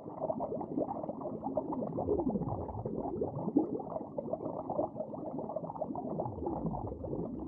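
Muffled underwater bubbling: a dense stream of small bubbles gurgling, with a few deeper swooping glides.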